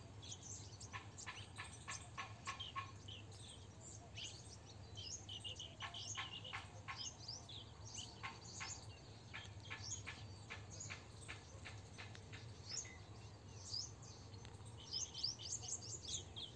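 Small birds chirping: many short, high chirps and quick runs of rapid notes, coming and going throughout.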